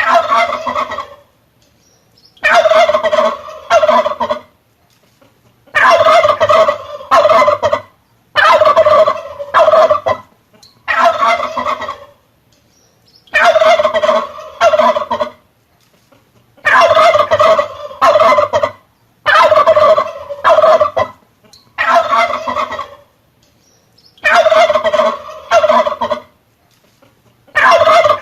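Male turkey gobbling over and over, about eleven rattling gobbles, each one to two seconds long, with short silent gaps of a second or so between them.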